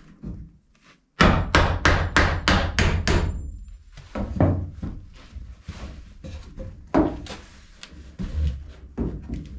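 Hammer driving nails into a wooden board. A fast run of about ten blows comes in two seconds, then a few slower, spaced strikes follow.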